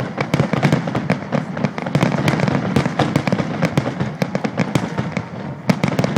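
Aerial fireworks bursting in quick succession: a dense run of sharp bangs and crackling pops with hardly a gap between them.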